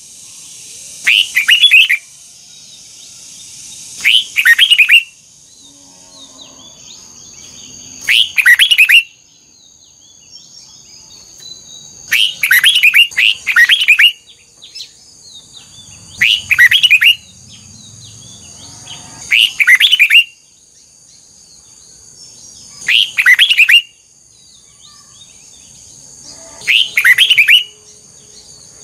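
Red-whiskered bulbul singing short, loud, quick phrases, repeated about every three to four seconds. A faint steady high-pitched tone runs underneath.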